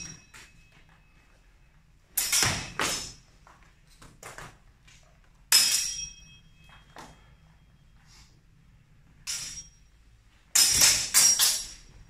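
Steel longsword training blades clashing in sparring: sharp metallic clacks, each with a brief ring. They come in separate exchanges: two or three strikes about two seconds in, one loud strike near the middle, fainter knocks after it, and a quick flurry of several strikes near the end.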